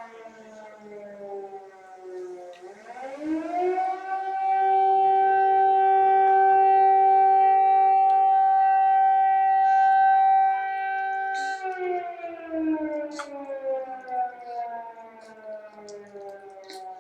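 Air raid siren wailing: its pitch slides down, rises again about three seconds in, holds a steady tone for several seconds, then slides slowly down before starting to rise once more near the end.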